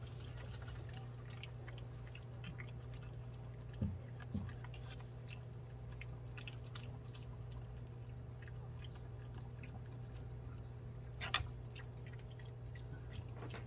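White Jindo mother dog eating from a bowl: faint scattered clicks of chewing and licking, with two soft thumps about four seconds in and a short cluster of sounds near the end, over a steady low hum.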